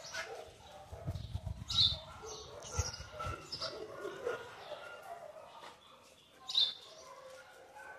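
Dogs barking sporadically: a short, sharp bark about two seconds in and another near the end, with fainter animal sounds between.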